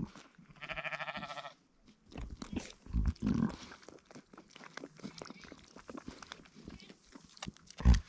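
Ewe licking her newborn lamb clean in the grass, with wet licking and crunching sounds throughout. A high, quavering sheep bleat comes about a second in, and a lower sheep call follows about three seconds in. A sharp bump near the end is the loudest sound.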